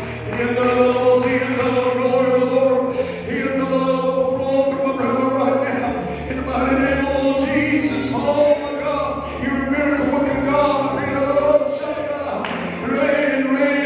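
Church choir and congregation singing a gospel worship song in long, held notes over a steady low bass accompaniment.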